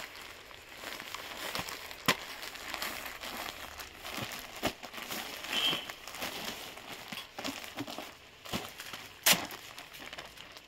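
Clear plastic garment bags crinkling and rustling as packed clothes are handled and one is pulled open, with a few sharp clicks among the rustling.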